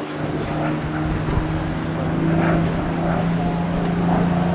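An engine droning steadily at one constant low pitch.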